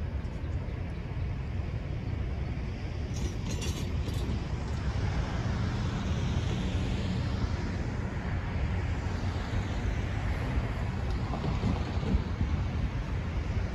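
Norfolk Southern GP38-2 diesel-electric locomotives, EMD 16-645 engines, running at low throttle as they approach slowly: a steady low rumble that grows a little louder as they draw nearer.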